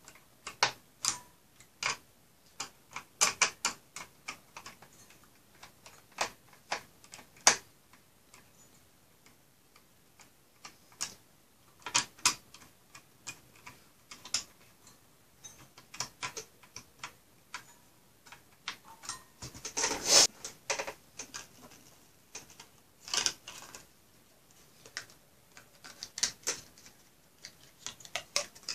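Irregular small clicks and metallic taps of a screwdriver on the screws of a finned CPU heatsink being fitted to a server motherboard, coming in clusters, with a longer, louder clatter about twenty seconds in.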